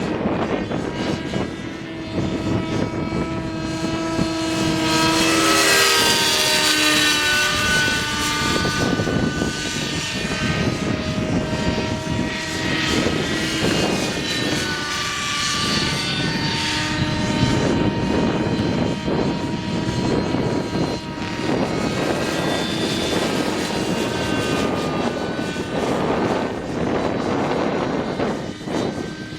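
Electric motors and propellers of a radio-controlled aircraft in flight, several whining tones sliding up and down in pitch as the motors speed up and slow down, over steady wind noise on the microphone.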